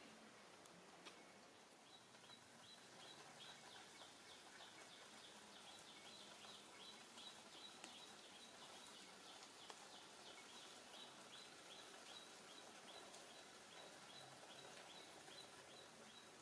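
Faint outdoor ambience with a steady, rapid run of high chirps, about four a second, starting about two seconds in.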